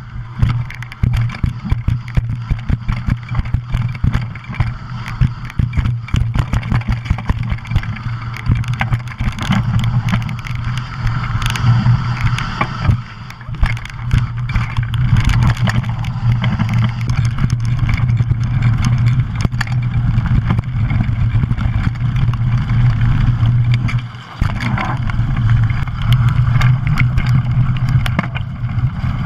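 Mountain bike ridden fast down a dirt trail, heard from a camera on the bike: a steady low rumble of tyres on dirt with constant rattling and knocking over the bumps. The noise drops away briefly twice.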